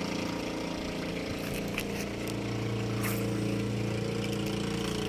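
A small engine running steadily, its hum swelling slightly in the middle, with a few faint clicks.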